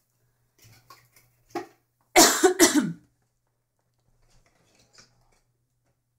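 A woman coughs, a short loud fit about two seconds in, among a few light knocks and rustles as cardboard product boxes are picked up and handled.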